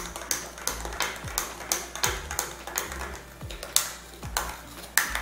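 A spoon clinking against the inside of a drinking glass while stirring chocolate into milk, in quick regular clinks about two to three a second.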